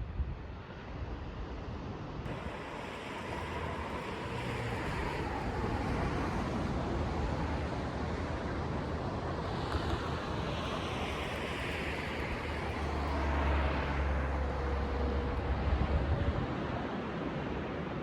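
Car engine and tyre noise that builds over the first few seconds and then holds steady, with a deep rumble underneath.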